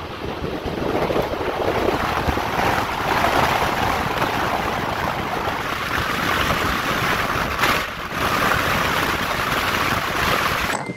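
Wind rushing past the open window of a pickup truck at road speed and buffeting the microphone, over the truck's road noise. The rush dips briefly about eight seconds in and changes abruptly near the end.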